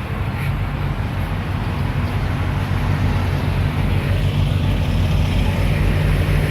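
Road vehicle engine running with a low, steady drone over traffic noise, growing gradually louder toward the end; no horn sounds.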